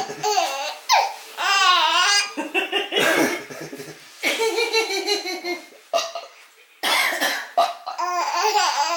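A baby laughing hysterically in a run of loud, high-pitched bursts with short breaks between them, set off by an adult's belching.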